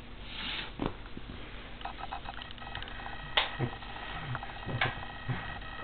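A cat rolling about in a flat cardboard box lid, frisky on catnip: scattered scuffs and knocks against the cardboard, the sharpest about three and a half seconds in.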